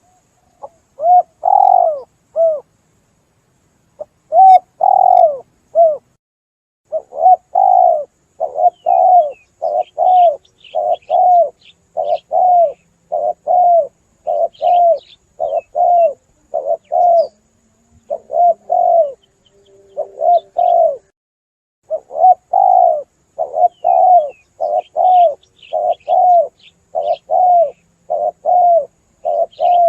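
Spotted doves cooing: the tekukur lure call used to draw wild doves in, a long run of repeated arched coos at about two a second with a few short pauses. Faint high chirps of small birds sound behind it.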